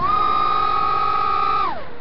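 FPV quadcopter's brushless motors and propellers whining at high throttle in a steep climb. The high, steady whine jumps up in pitch at the start, holds, then drops sharply near the end as the throttle is cut back.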